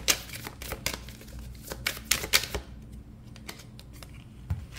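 A deck of tarot cards being shuffled by hand: a quick run of sharp card clicks that stops about halfway through, followed by a few soft taps.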